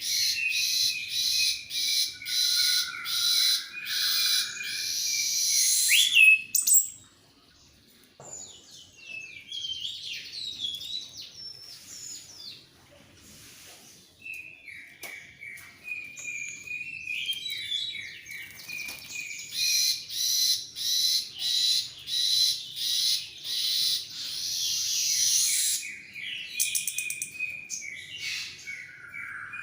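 Orange-headed thrush in full song, with loud runs of rapid repeated notes and varied gliding phrases between them. The song breaks off briefly about seven seconds in.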